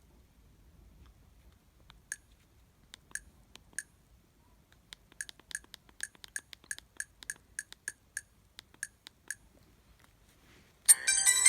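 Keypad buttons on an Alcatel OT-660 flip phone clicking, scattered at first and then about three presses a second while scrolling through the ringtone list. Near the end a preloaded polyphonic ringtone starts playing loudly from the phone's speaker.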